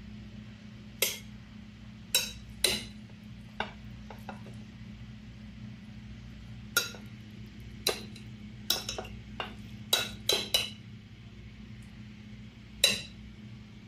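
A metal serving spoon clinking and scraping against ceramic dishes while food is scooped from a bowl onto a plate: about a dozen irregular sharp clinks with a short ring, the loudest near the end, over a steady low hum.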